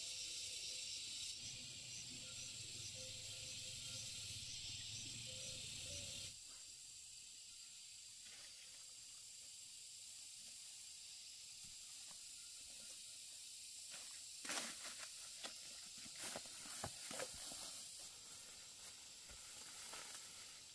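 A steady high hiss that drops off suddenly about six seconds in, leaving a fainter hiss. In the second half comes a run of sharp clicks and rustles.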